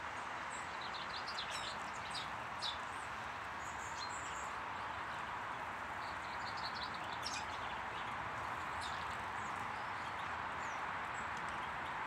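Small garden birds chirping in short quick runs of high notes, in two spells about a second in and again past the middle, over a steady background hiss.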